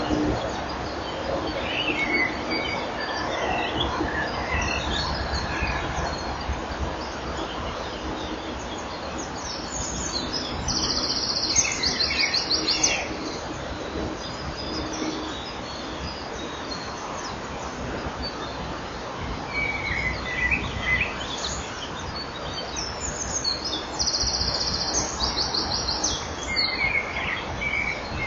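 Bird chirps and two rapid, high trills, each about two and a half seconds long, one in the middle and one near the end, over a steady low hum.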